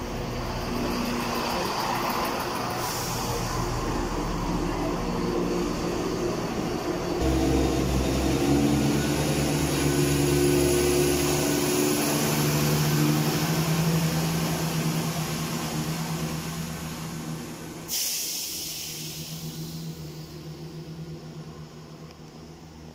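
Electric and diesel passenger multiple-unit trains running at a station platform: a steady rumble whose low drone strengthens about seven seconds in, with a faint high whine rising above it. About eighteen seconds in comes a sudden sharp hiss of released air, which fades as the train sound dies down.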